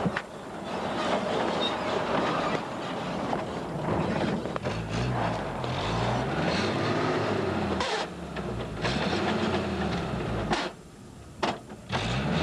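Suzuki 4x4's engine revving up and down repeatedly in swells of a second or two as it works over rough ground. The first few seconds hold a dense rushing noise.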